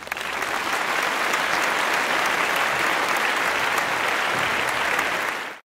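Applause from a crowd, steady throughout and cut off suddenly near the end.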